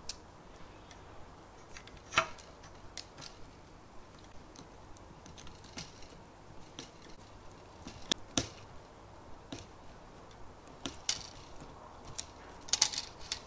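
Irregular light clicks and taps of a plastic cable drag chain and its wiring being handled as stepper motor wires are pressed into the chain links. A sharper click comes about two seconds in, and a quick cluster comes near the end.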